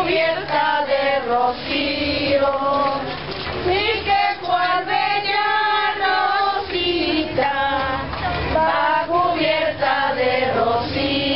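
A crowd of women's and children's voices singing together, a Christmas posada procession song.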